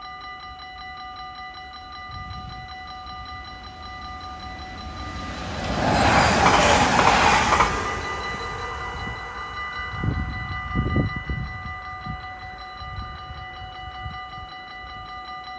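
Level-crossing warning bell ringing in a fast, steady repeat throughout. A train passes about five seconds in and swells to a loud rush that fades by about eight seconds. A few low thumps follow a couple of seconds later.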